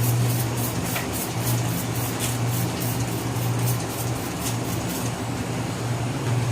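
Steady low hum under a fizzing, crackling hiss, typical of aluminium-fin cleaner foaming and reacting on a refrigerator condenser's fins; the crackle thins out near the end.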